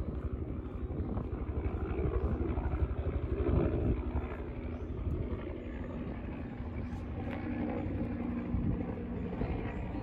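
Wind buffeting an outdoor microphone: a low, fluttering rumble.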